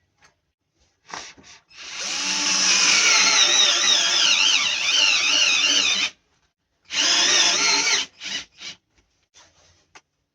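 Power drill-driver driving self-tapping screws straight into a refrigerator door to fix a hinge. A short blip, then a long run of about four seconds with the motor pitch wavering under load, then a second run of about a second and a couple of brief blips.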